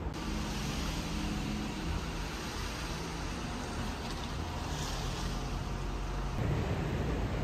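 Outdoor city street ambience: a steady rumble and hiss of passing traffic.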